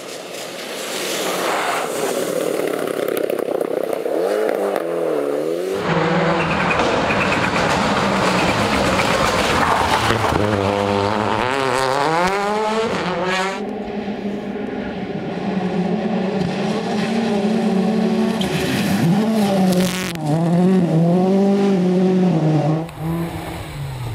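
Rally cars driven flat out on a stage, engines revving hard and dropping back through gear changes as they pass, in several short clips cut together.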